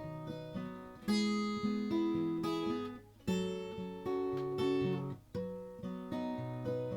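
Acoustic guitar strumming chords in a folk song, with no singing over it.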